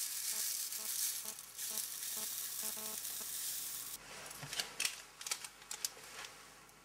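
Magnesium turnings pouring from a plastic weighing boat into a porcelain crucible: a continuous dry, high-pitched rustling hiss of small metal chips sliding and landing. The pour stops about four seconds in, followed by a few scattered light clicks.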